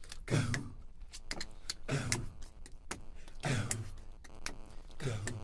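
Slow, even drum beat, a low boom about every second and a half, with sharp clicks between the beats.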